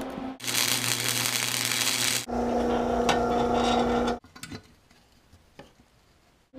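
Flux-core wire welding on steel, a steady loud hiss and crackle for about two seconds that cuts off sharply. Then a power drill running in steel plate with a steady hum for about two seconds, then near quiet with a few faint clicks during thread cutting.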